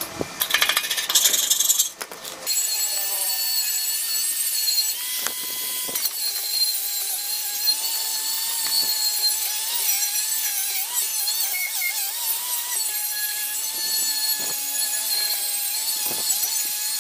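A burst of clicking and scraping on rusty metal, then from about two and a half seconds in a Makita angle grinder with a flap disc runs steadily, sanding rust and paint off a steel air-compressor tank. Its whine wavers slightly in pitch as the disc bears on the metal.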